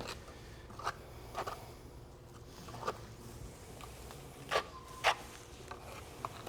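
Trowel spreading and scraping thick, plaster-like Ceilcote 140 Flakeline coating across a board: about six short, scattered scrapes, the two loudest a little past halfway.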